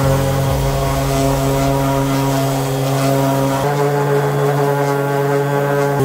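Bauer random orbital sander running with 220-grit sandpaper on wood: a steady motor hum, its tone shifting a little about three and a half seconds in.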